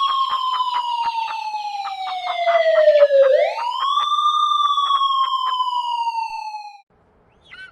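Emergency vehicle siren wailing in two slow cycles, each rising quickly and then falling over about three seconds, with rapid irregular clicks over the first part. It cuts off about a second before the end.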